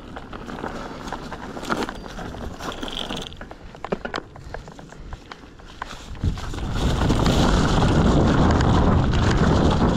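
Orbea Occam H20 mountain bike coasting over rough trail, with quick irregular ticking and rattling from the rear hub and drivetrain. About six seconds in, a loud rush of wind and tyre noise takes over as the bike picks up speed downhill.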